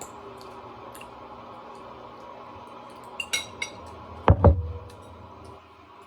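Dishes and cutlery clinking: a few light clinks, then two louder knocks of crockery set down, with a short ring after them.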